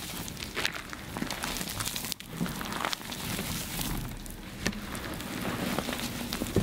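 Reformed gym chalk being crushed, giving a continuous, irregular run of crisp crunches and crackles.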